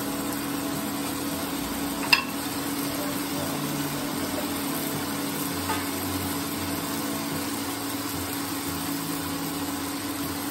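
Tomato-and-spice masala sizzling as it fries in a non-stick pan, over a steady low hum. There is a single sharp click about two seconds in.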